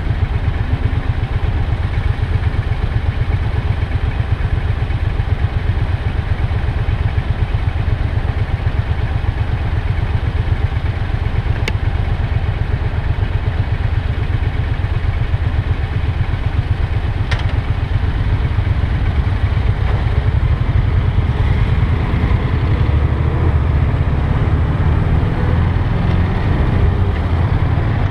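Motorcycle engine idling with a steady low pulse while stopped in traffic, then pulling away about two-thirds of the way through, the engine note growing fuller as it moves off.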